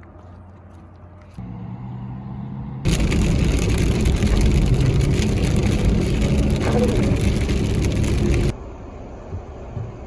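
Steady road and wind noise from a moving car, in a few abruptly cut segments. The loudest segment, a hiss across the whole range, runs for about six seconds and cuts off sharply near the end.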